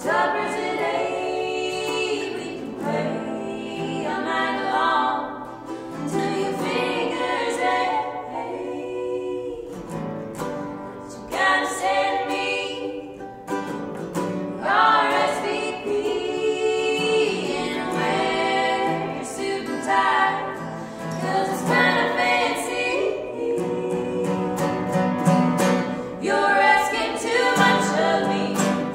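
Acoustic folk song performed live: women's voices singing over a strummed ukulele and an acoustic guitar.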